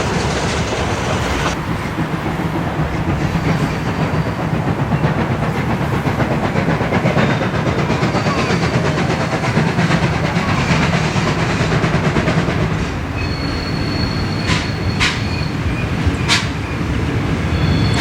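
Train running along the track, with a steady rumble and the clatter of wheels over the rail joints. Brief high-pitched tones come in a few seconds before the end.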